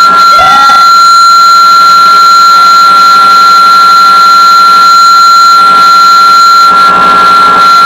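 Very loud amplified electronic noise: a piercing steady high tone held over a dense drone of other steady tones, with a short warbling glide about half a second in.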